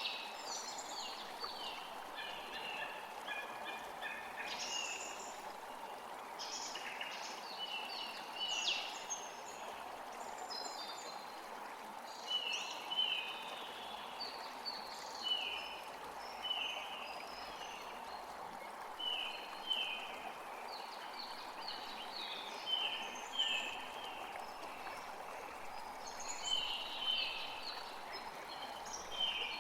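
Several songbirds singing over the steady rush of a forest creek. Through the second half, one bird repeats short falling notes in quick pairs every second or two.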